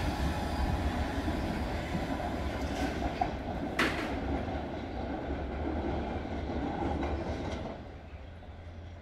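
London Underground S7 Stock train pulling out and running away down the line, its rumble and wheel noise fading as it goes, with a whine that dies away in the first couple of seconds. There is one sharp clack about four seconds in, and the sound drops off sharply near the end.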